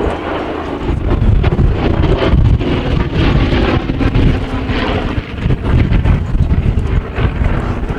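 Douglas A-26C Invader's two Pratt & Whitney R-2800 radial engines running as the aircraft flies a display pass, growing louder about a second in, with wind buffeting the microphone.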